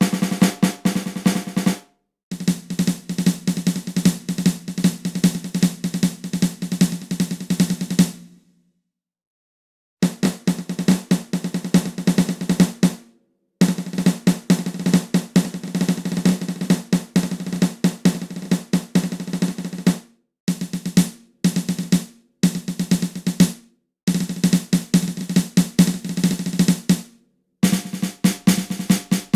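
Drum rolls: rapid drum strokes in a string of runs, some several seconds long and a few under a second, each cut off by a short silence. This is a build-up sound effect.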